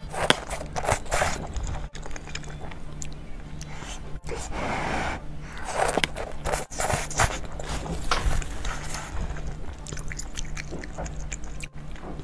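Wet slurping of wide glass noodles from a self-heating hot pot, in a series of irregular slurps mixed with chewing.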